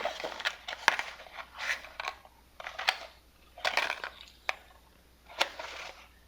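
Cardboard padlock packaging being handled, rustling and crinkling in a series of short bursts with sharp clicks, about six or seven in all.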